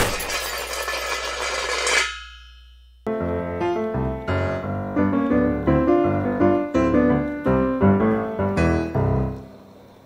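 Piano background music starts about three seconds in. Before it, a crashing, shattering noise dies away with a ringing tail over the first two seconds, followed by about a second of silence.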